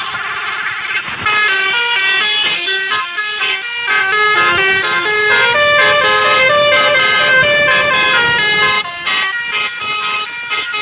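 Basuri telolet horn on a tour bus's roof-mounted trumpets, playing loudly: a fast warbling tone at first, then a tune of held notes stepping up and down in pitch, breaking into short choppy blasts near the end.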